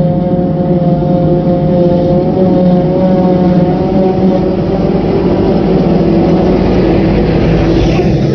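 Claas Jaguar 960 forage harvester running under load while it chops grass close by: a loud, steady engine drone with a steady whine over it. Near the end a rushing hiss rises as chopped grass flies past.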